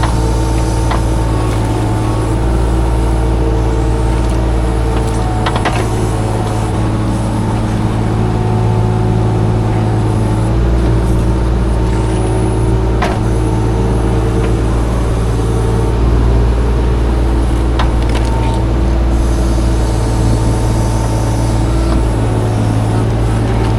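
Mini excavator engine running steadily under digging load in a muddy ditch, with a few sharp clicks and knocks scattered through.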